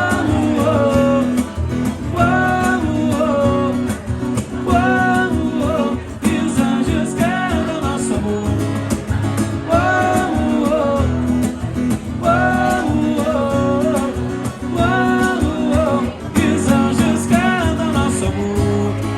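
Live acoustic music from a guitar-and-vocal duo: guitar accompaniment under a melody line that repeats in short phrases about every two seconds, with no words in it.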